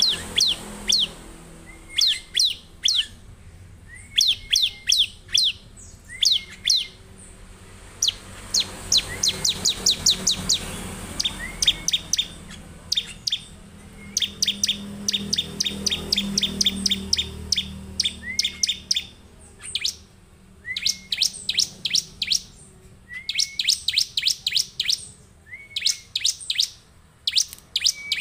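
Bar-winged prinia (ciblek) singing vigorously in bursts. Each phrase is a short rising note followed by a rapid run of sharp, high chips, repeated every couple of seconds, with one longer, faster run of chips about nine seconds in.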